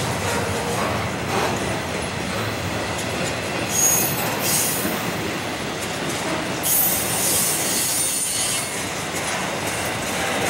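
Double-stack intermodal well cars of a freight train rolling past with a steady rumble of wheels on rail. Brief high-pitched wheel squeals come about four seconds in and again around seven seconds.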